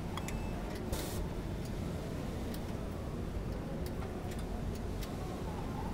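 Sankosha AF-1000J clothes-folding machine at work as a garment is fed in: scattered sharp clicks and ticks, with a short hiss about a second in, over a steady low hum.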